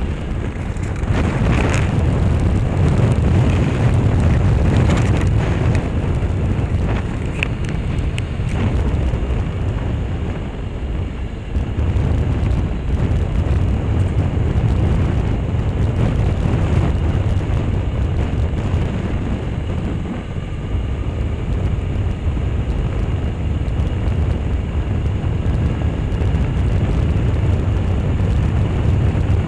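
Motorcycle riding at road speed: wind rushing over a handlebar-mounted action camera's microphone, with the engine and tyre noise under it as a steady low rumble. A few sharp knocks in the first several seconds, and the rush eases briefly twice.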